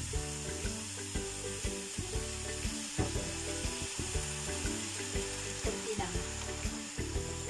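Bok choy and fish balls sizzling steadily in a hot wok, with chicken broth poured in about halfway through. Background music plays along.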